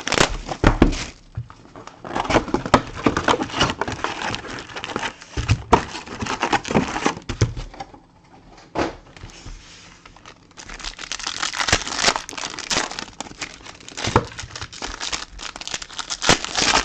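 Trading card packs being torn open, their wrappers crinkling and tearing in bursts of rustle, with a quieter pause about halfway through.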